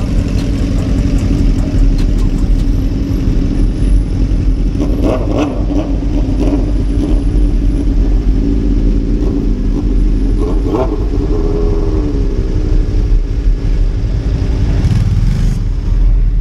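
Motorcycle engines idling loudly, revved briefly about five seconds in and again about ten seconds in, the second rev falling slowly away.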